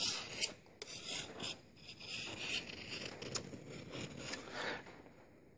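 Flat single-cut chainsaw file rasping along the edge bevel of a Tramontina Bolo machete in a series of short strokes, the first loudest and the rest lighter. These are the last touch-up strokes of filing the bevel, and they stop shortly before the end.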